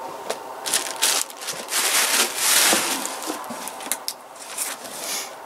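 Crinkling and rustling of packaging being handled, with several short sharp clicks; it is loudest in the middle and dies down toward the end.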